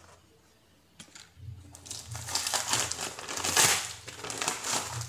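Plastic parcel wrapping crumpling and crinkling as it is handled and opened, starting about a second in and going on in irregular crackly bursts.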